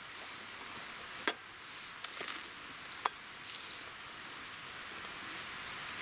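A few sharp clicks and light taps over a faint steady hiss, from a fork on a metal frying pan and a small wood fire crackling in a box stove.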